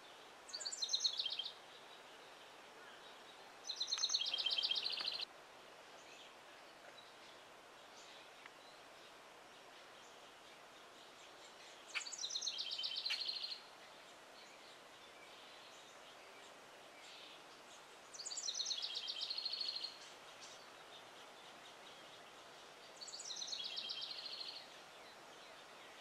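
House wren singing: five short songs with long gaps between them, each a rapid run of high notes falling in pitch.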